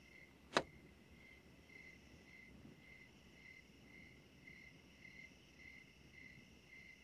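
Cartoon sound effect of crickets chirping faintly and steadily, about two chirps a second. This is the stock cue for an empty, silent scene after a character has left. A quick falling swish comes about half a second in.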